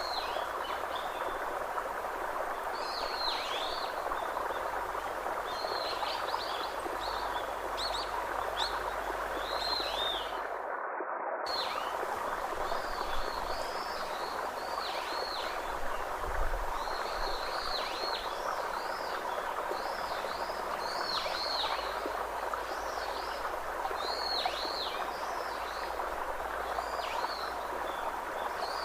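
Birds chirping over a steady rushing background noise: many short, sweeping high calls repeat every second or so, with a brief break about eleven seconds in.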